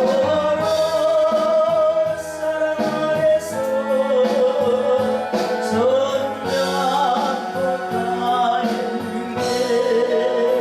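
Korean gospel hymn sung by a woman, holding long notes with vibrato over instrumental accompaniment.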